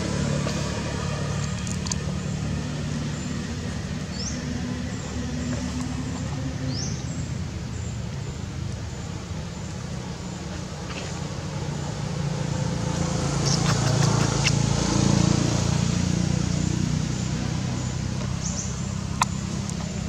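Steady low hum of a motor vehicle engine running, swelling louder about two-thirds of the way through, with a few short high chirps early on and a single sharp click near the end.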